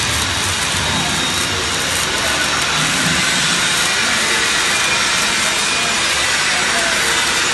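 Fronius-powered welding arc on a CNC long-seam welder, running steadily along a seam in stainless steel plate with an even hissing crackle.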